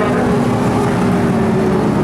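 Several Lightning Sprint cars racing, their engines making a steady, continuous drone.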